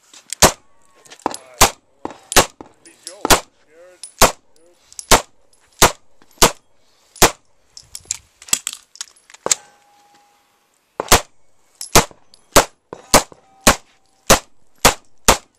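Beretta PX4 9mm pistol firing a long string of single shots, about twenty, roughly one every half second to a second, with a pause of about a second and a half near the middle.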